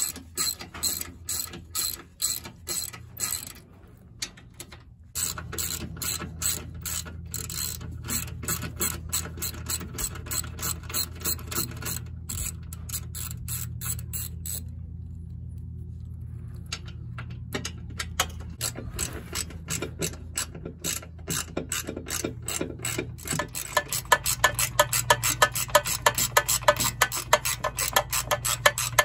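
Hand socket ratchet clicking in quick runs as bolts are backed out, over a steady low hum that comes in about five seconds in. Near the end the clicking gets faster and louder.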